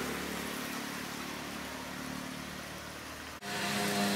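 Ginger-garlic paste sizzling in hot oil in a clay cooking pot, a steady hiss with a low motor-like hum beneath it. The sound breaks off abruptly about three and a half seconds in, where a steadier drone with several held tones takes over.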